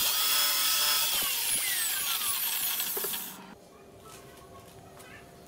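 Drill press running and boring into a wooden blank, a loud whine whose pitch lines slide downward in the second and third seconds; it cuts off abruptly about three and a half seconds in, leaving quiet room tone.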